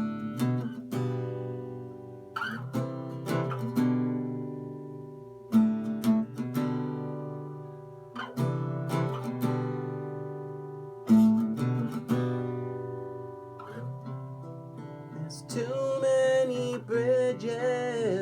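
Acoustic guitar playing a song's intro, with chords struck and left to ring a few seconds apart. A singing voice comes in near the end.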